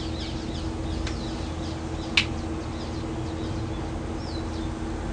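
Small birds chirping over and over in short falling notes, with one sharp click about two seconds in and a steady low hum underneath.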